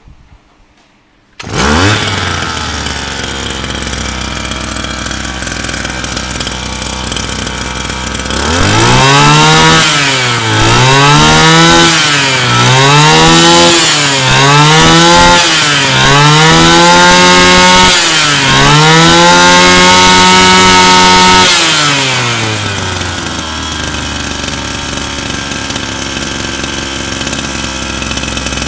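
Mitsubishi T170 brush cutter's 33 cc two-stroke engine starting up about a second and a half in and idling. From about eight seconds in it is revved up and down about seven times, the last rev held for a couple of seconds. It then drops back to a steady idle.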